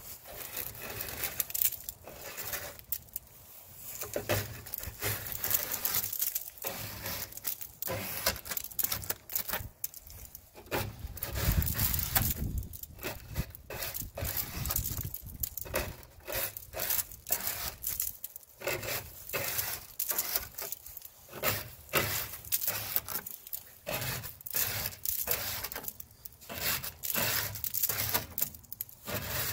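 A plastic hand scraper scraping zebra mussels off a pontoon boat's tube, in irregular crunchy strokes. The shells crackle as they break loose and fall away.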